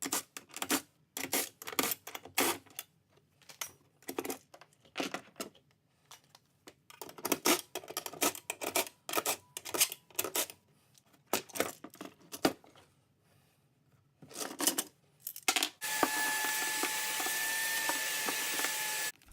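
Hands working car carpet and sound-deadening material: irregular rustling, tearing and small clicks. Near the end a steady hissing sound with a thin whine runs for about three seconds, then cuts off.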